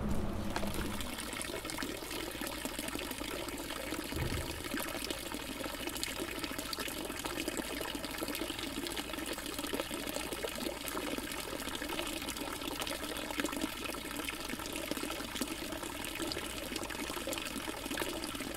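Water from a stone village fountain pouring steadily into its basin, an even splashing trickle.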